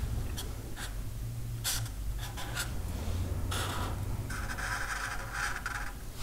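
A few light laptop key clicks, then a felt-tip marker drawing lines on paper, scratching and squeaking for about two seconds near the end.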